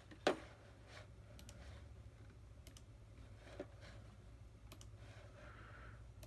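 Computer mouse clicks: one sharp click just after the start and several fainter ones scattered through, over a steady low hum.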